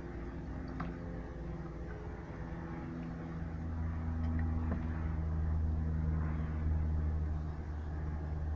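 A motor running with a steady low hum that grows louder about halfway through.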